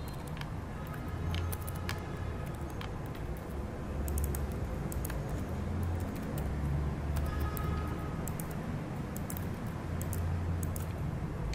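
Typing on a computer keyboard: scattered, irregular key clicks over a steady low background rumble.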